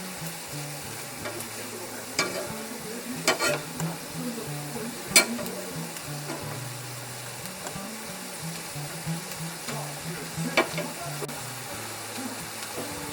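Food sizzling in a frying pan as it is stir-fried, with a utensil clicking against the pan a few times, loudest about five seconds in.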